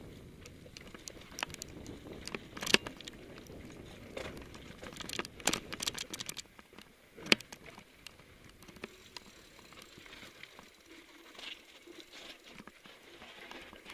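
Mountain bike rolling down a rocky trail: tyres crunching over grit and sandstone, with the bike rattling and clicking over rocks and two sharp knocks about a third and halfway through. The rumble of riding fades after about the halfway mark.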